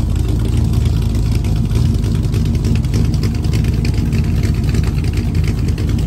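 Chevrolet LS3 V8 in a 1972 Impala idling through its exhaust, a steady low rumble.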